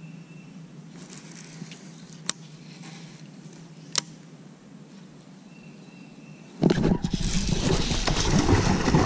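A hooked bass splashing at the water's surface as it is reeled in. Before that, a low quiet background with two sharp clicks. The splashing starts suddenly about two-thirds of the way through and is loud.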